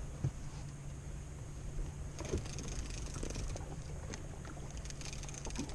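Steady low hum and background noise of a fishing boat on the water, with a few faint knocks.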